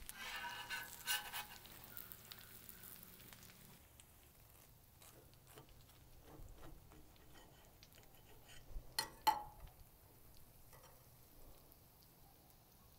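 Burger patties sizzling on a flat-top griddle for the first few seconds. The sizzle then drops away, leaving faint small clicks and a short louder sound about nine seconds in, while a burger is cut with a knife on a plate.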